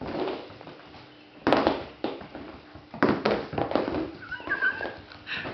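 Labradoodle–pointer puppy knocking and clattering about on a hard floor, with a short high whine about four seconds in.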